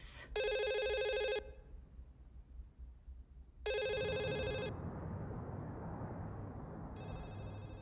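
A telephone ringing: three trilling rings about a second long each, roughly three and a half seconds apart. A low, steady background hiss fills the gap after the second ring.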